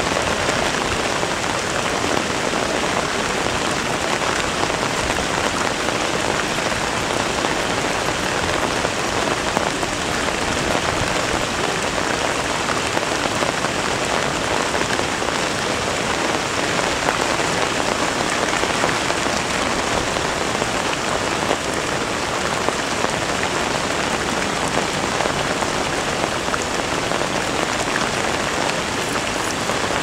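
Heavy typhoon rain pouring down steadily: a dense, even hiss of drops hitting wet ground and standing water.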